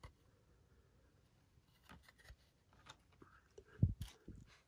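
Quiet handling of trading cards and a hard plastic graded-card slab on a table: a few faint clicks, then a soft low thump with a sharp click about four seconds in.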